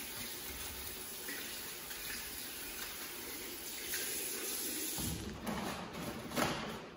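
Water running steadily from a washbasin tap over hands being washed in the sink. After about five seconds it turns less even, with a few louder handling noises near the end.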